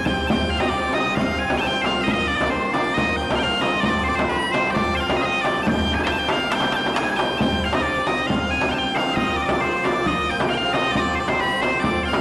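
Bagpipe music: a melody of held notes stepping up and down over a steady drone.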